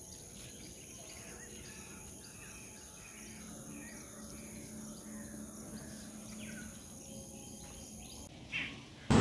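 Faint outdoor ambience: a steady high-pitched insect drone with scattered faint bird chirps. The drone stops shortly before the end, and a short click follows.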